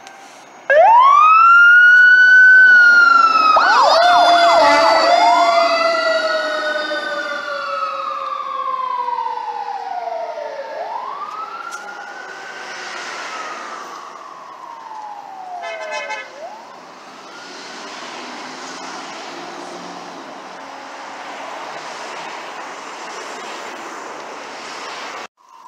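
Fire apparatus siren starting up loud with a rising wail, then slow rising-and-falling wail cycles with a brief fast warble a few seconds in. It grows steadily fainter as the vehicle drives away on a call.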